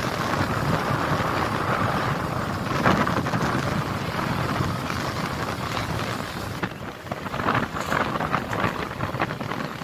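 Wind buffeting the microphone over the steady rush of water along the hull of a ferry under way. About two-thirds of the way through, this gives way to the duller noise inside the ferry's passenger cabin, with irregular knocks.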